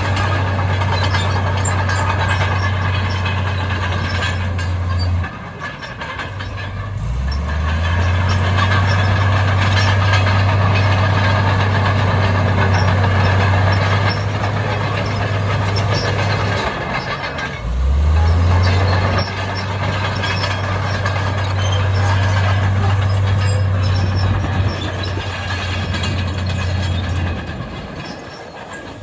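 Heavy diesel engine of earthmoving machinery working under load with a deep steady drone. It eases off twice, about five and sixteen seconds in, and revs back up each time with a rising pitch, then falls away near the end.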